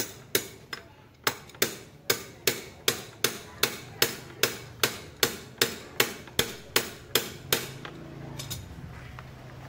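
Steady hammer blows on metal, about two and a half a second, driving at an over-tightened scooter oil drain bolt to break it loose. The blows stop about three-quarters of the way through.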